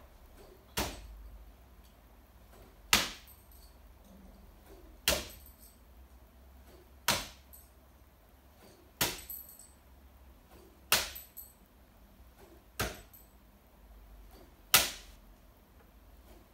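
Steel bo shuriken (throwing spikes) striking a target board, one sharp knock about every two seconds, eight in all. Some strikes are followed by a brief metallic ring.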